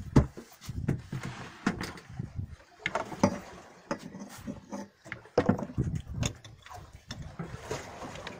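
Irregular knocks, taps and clatter of hands working at the side of a small fishing boat, with a sharp knock about 3 seconds in and another about 5 seconds in.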